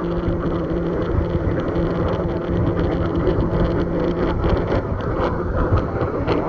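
Radio receiver static: a steady hiss and rumble with a low hum, crackling more toward the end, as a weak broadcast signal is listened for.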